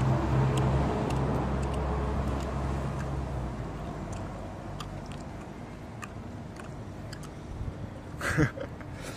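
A vehicle's engine hum, steady and low, fades away over the first few seconds, leaving small scattered clicks and scratches. A brief sharp sound stands out near the end.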